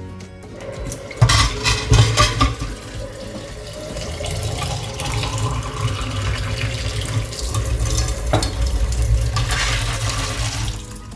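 Kitchen tap running into a sink while a pan is rinsed, with the pan clattering against the sink for a couple of seconds about a second in. The running water stops abruptly near the end.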